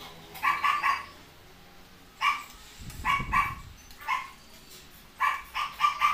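A dog barking repeatedly: about a dozen short, high barks in quick clusters of one to three.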